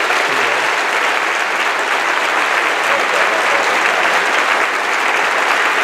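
Concert audience applauding steadily, a dense clatter of many hands clapping.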